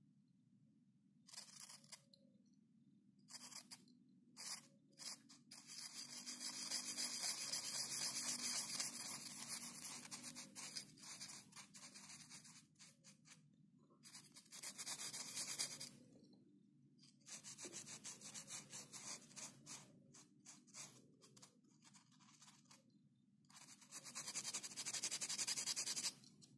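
Scratchy rubbing strokes in bursts: a few short ones, then longer stretches of several seconds each, with quiet pauses between.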